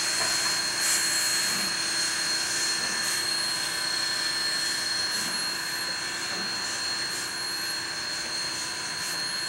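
A locomotive running steadily: an even mechanical rumble and hiss with a constant thin high whine.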